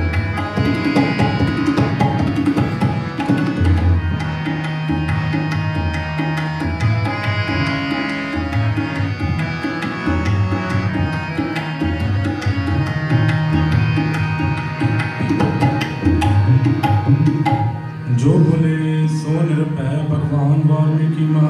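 Devotional kirtan music: tabla drumming a fast rhythm under the held notes of a harmonium, with singing. About 18 seconds in the drumming breaks off briefly, and voices carry on over the harmonium's steady notes.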